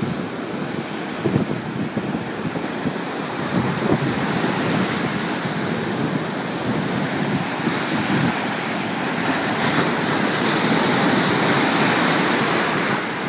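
Ocean surf breaking and washing toward shore, with wind buffeting the microphone. The hiss of whitewater grows louder about eight seconds in and holds for several seconds.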